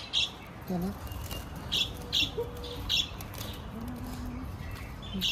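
Budgerigars chirping from inside a wire cage: about five short, sharp chirps, spaced irregularly.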